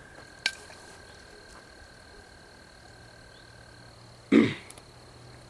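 Night insects calling with a steady high-pitched trill, two tones together, the lower one stopping near the end. A sharp click comes about half a second in, and a short loud burst about four seconds in.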